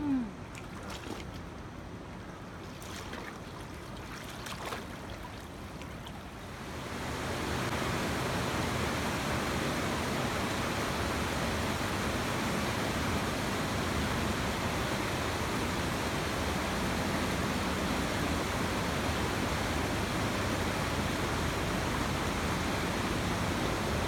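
Muddy floodwater rushing down a street, a steady rushing noise that grows louder about seven seconds in.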